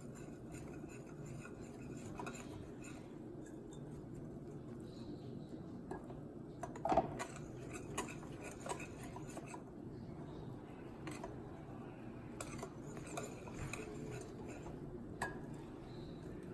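A whisk stirring pancake batter in a mixing bowl, with irregular clinks where it strikes the side of the bowl.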